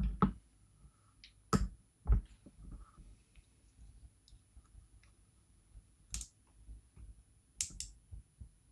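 Sharp clicks and small metallic snaps as the spring covers are pried off a Goal D9 lock's pin chambers and the springs are taken out. The clicks come one at a time at irregular intervals, with two loud ones close together near the end.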